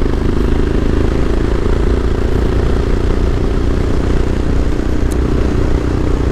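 Carbureted Royal Enfield Himalayan's single-cylinder engine running steadily as the bike is ridden along the road.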